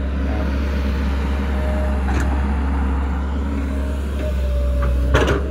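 XCMG XE135B excavator's Isuzu 4BG1 diesel engine running steadily under working load as the hydraulics swing and lower a full bucket of soil, with a faint steady whine. A light knock comes about two seconds in and a louder knock near the end.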